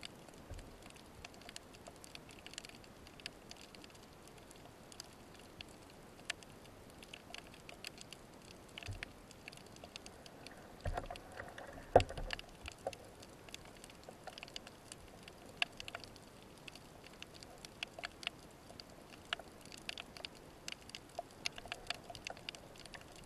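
Underwater ambience of a rocky Mediterranean seabed: a faint hiss sprinkled with many small clicks and crackles. A louder knock stands out about twelve seconds in, with a few smaller knocks just before it.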